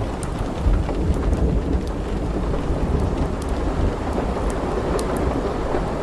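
Heavy rain pouring, a dense steady hiss with a deep low rumble underneath and many scattered sharp ticks of drops striking hard surfaces.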